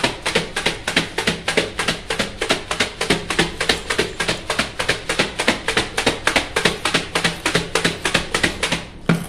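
Broken crisp rice papad pieces rattling inside a lidded plastic container shaken vigorously to coat them with spice mix, at about five or six shakes a second. The shaking stops about nine seconds in.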